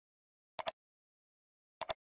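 Computer mouse clicks, twice, each a quick pair of clicks: about half a second in and again near the end, with dead silence between.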